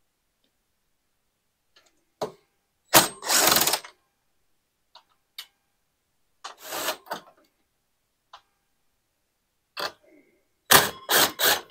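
Cordless driver running in two short bursts as it backs out the bolts on a generator's back cover, with separate clicks and knocks of the tool and metal parts between, and three sharp knocks near the end.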